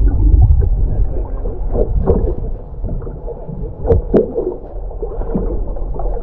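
Muffled underwater sound through a camera's waterproof housing: a low rushing and gurgling of water, with a few sharp clicks around the middle.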